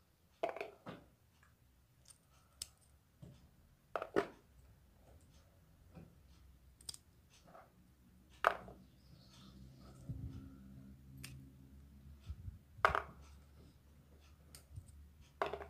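Light clicks and taps as blanched almonds are squeezed out of their skins and dropped into a plastic bowl, one sharp click about every four seconds with smaller ticks between.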